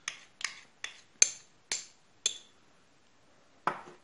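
Spoon clinking against a dish while molasses is stirred or scraped in, about six ringing clinks roughly half a second apart, stopping after about two and a half seconds. One duller knock near the end.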